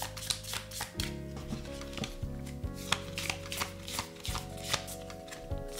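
Tarot cards being shuffled by hand, a quick run of irregular card flicks and slaps.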